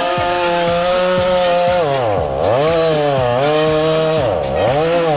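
Chainsaw cutting into a willow trunk, its engine running hard with a steady pitch that dips sharply and climbs back twice, about two and four and a half seconds in.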